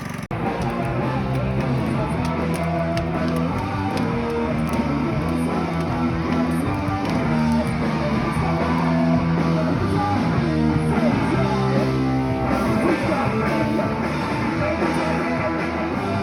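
Punk-style rock music with electric guitar, playing steadily.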